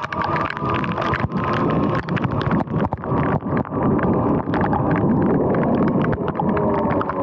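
Sur-Ron X electric dirt bike riding in the rain: a motor whine that drifts in pitch with speed over the hiss of tyres on wet pavement and wind on the microphone, with many small ticks of raindrops hitting the camera.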